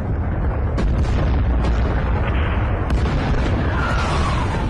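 Battle sounds of artillery and explosions: a continuous deep rumbling roar with several sharp blasts cracking through it. A whistle falls in pitch near the end.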